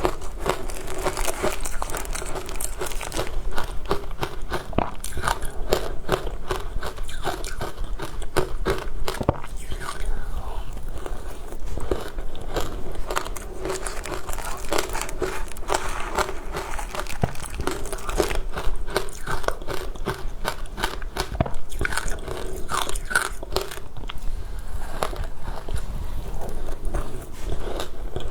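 Frozen matcha ice being bitten and crunched between the teeth: a continuous run of sharp cracks and crunches.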